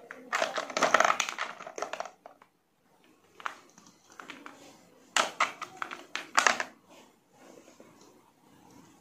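Hollow plastic balls and small plastic toys clattering and rustling against each other and the plastic tub as a hand moves them. The sound comes in a few short bursts, the longest in the first two seconds.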